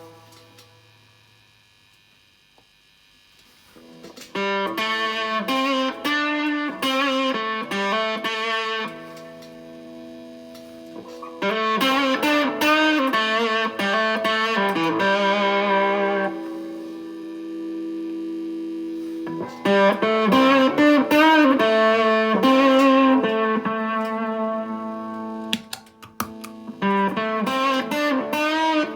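Electric guitar played through an Astrotone-style fuzz pedal built with 2N3566 silicon transistors. A note fades away over the first few seconds, then riffs and chords start about four seconds in, with several chords left to ring out between phrases.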